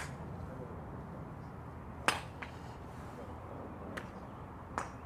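Golf clubs striking balls: three sharp cracks at irregular intervals, the loudest about two seconds in with a short ringing tail, the others fainter.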